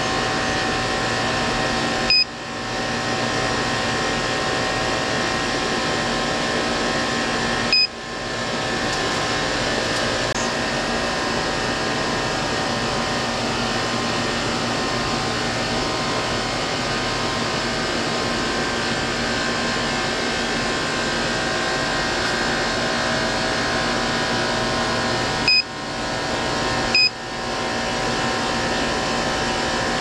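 Carrier Infinity Series outdoor condensing unit running steadily while R-410A refrigerant is charged into it: a constant whir of condenser fan and compressor with several steady hums. Four short high beeps, about two and eight seconds in and twice near the end, each followed by a brief dip in the noise.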